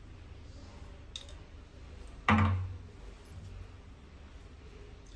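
Kitchen containers being handled on a stone countertop: a faint click, then about two seconds in one sharp knock that rings briefly and fades over about half a second.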